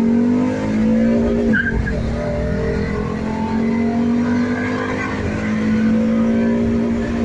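Car engine under hard acceleration, its pitch climbing. It drops sharply at a gear change about one and a half seconds in, then climbs slowly again.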